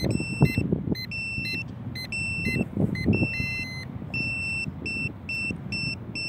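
A fast string of short electronic beeps at a few different pitches, about two or three a second, from the electronics of a Hubsan X4 Storm micro quadcopter set. Low bumps of handling or wind on the microphone come through about half a second in and again around three seconds in.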